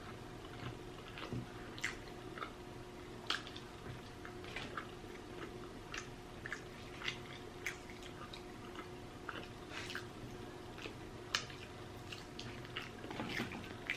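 Close-miked chewing of food with wet mouth smacking: quiet, irregular short clicks and squishes, one or two a second.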